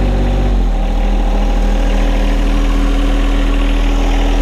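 John Deere 1025R compact tractor's three-cylinder diesel engine running; its speed drops about half a second in and then settles to a steady idle.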